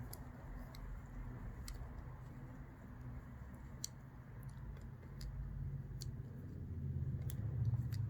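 Schrade Tough multitool being handled, giving off a few faint, sharp clicks of its metal parts over a low rumble of handling noise that grows toward the end.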